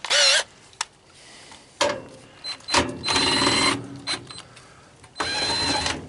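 A power drill with a screwdriver bit whirring in several short bursts, backing screws out of a dehumidifier's casing. The longest bursts come about three seconds in and near the end, each lasting about a second, with small clicks between them.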